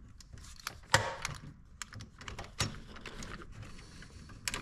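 Irregular clicks and light knocks from hands and tools working at an electrical breaker panel, handling wires and a breaker; the sharpest clicks come about a second in and again halfway through.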